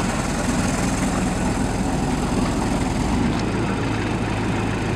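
Vehicle engine running steadily with road noise, heard from aboard the moving vehicle.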